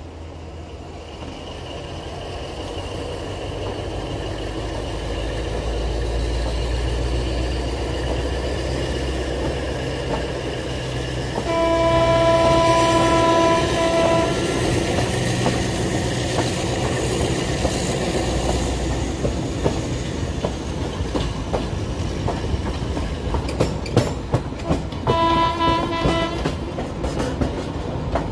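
TCDD DE 24000 diesel-electric locomotive pulling away, its engine growing louder with a rising whine. Its horn sounds a long blast about eleven seconds in and a shorter one near the end, while the wheels click over rail joints and points.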